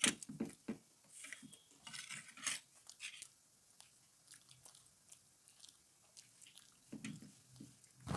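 Pizza being chewed with the mouth close to the microphone, in short irregular bursts, with a sharp click at the very start.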